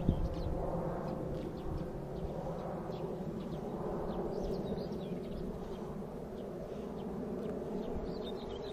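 Outdoor background sound: a steady low hum with scattered faint bird chirps.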